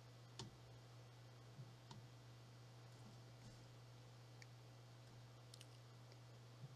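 Near silence: a faint steady low hum with about eight faint, short clicks scattered at irregular intervals.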